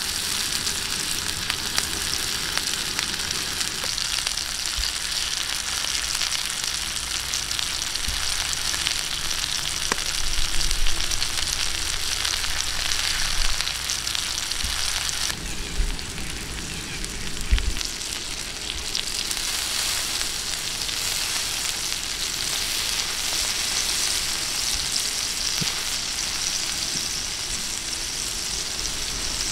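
Steak and eggs in bell-pepper rings frying on a hot stone slab: a steady sizzle that changes character about halfway through, with a few soft low knocks.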